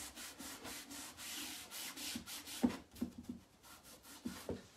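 Cloth rubbing back and forth over the waxed, chalk-painted wooden top of a piece of furniture, at about five quick strokes a second, buffing off excess Dixie Dirt wax. The rubbing stops a little past halfway, and a few soft thumps follow.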